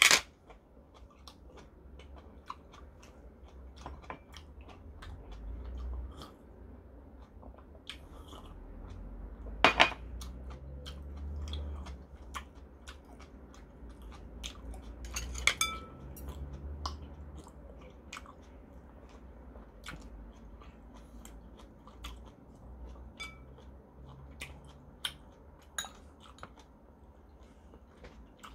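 A man chewing food close to the microphone, with scattered small clicks and clinks of a metal spoon against the bowls. The sharpest clinks come about 10 and 15 seconds in, the second one briefly ringing.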